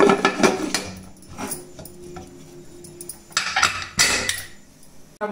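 Aluminium pressure cooker's whistle weight being fitted onto the lid's vent pipe: a few light metallic clicks, then a sharp clink of metal on metal about four seconds in.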